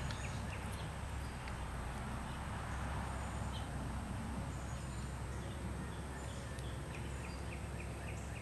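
Outdoor background ambience: a steady low hum and hiss, with faint short bird chirps scattered through and a thin steady high-pitched tone.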